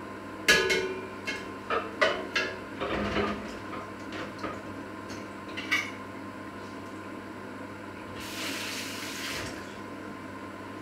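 Dishes and utensils being handled and washed at a kitchen sink: a series of clinks and knocks, the loudest about half a second in, then a tap runs for about a second and a half near the end.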